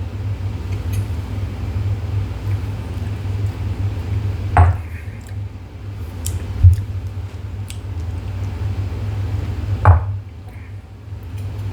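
Tasting glasses knocking as they are picked up and set down on a table: three sharp clinks, about a third of the way in, a couple of seconds later and near the end, over a steady low hum.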